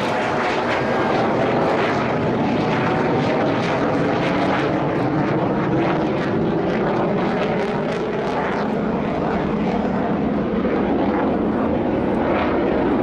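Chengdu J-10 fighter's jet engine during an aerobatic display, a loud, steady rushing noise with a fine crackle.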